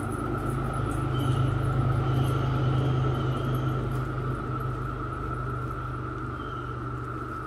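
A low rumble that swells about a second in and fades after about four seconds, over a steady high drone of a cicada chorus.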